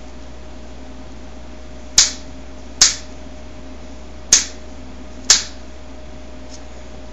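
Pliers snipping rings one by one off a coiled wire spring to make chainmail rings: four sharp snaps, the first about two seconds in, roughly a second apart. A faint steady hum runs underneath.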